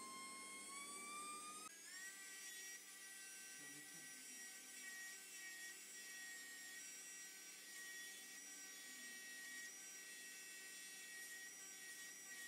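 Veterinary dental grinder handpiece running with a thin, high-pitched motor whine while grinding down a rabbit's overgrown cheek-tooth points. Its pitch climbs over the first couple of seconds, then holds at a steady higher note.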